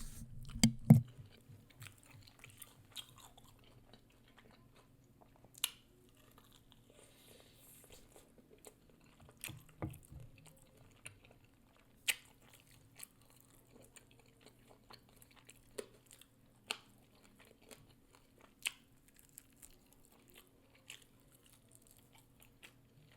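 Close-miked chewing and lip-smacking, with scattered sharp wet mouth clicks and a louder bite or crunch about a second in and again around ten seconds. A faint steady hum runs underneath.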